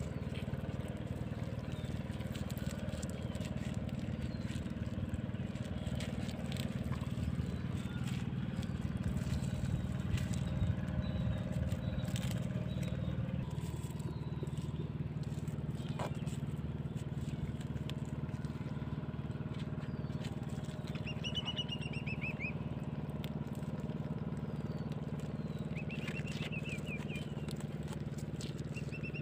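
Steady low drone of an engine running, its pitch shifting slightly about halfway through, with faint clicks and a few short bird chirps near the end.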